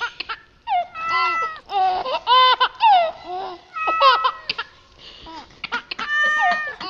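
High-pitched human laughing and giggling in several short runs with brief pauses between.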